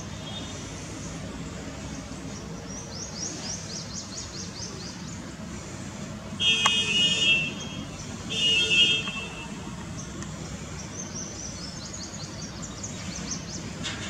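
Steady town traffic hum with two short honks of a vehicle horn a little before halfway, about two seconds apart, the loudest sounds. A small bird gives rapid high trills twice, before and after the honks.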